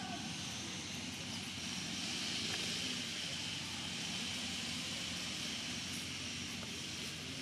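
Steady outdoor background noise: a low, even rumble like distant traffic under a steady high hiss, with no distinct calls or knocks.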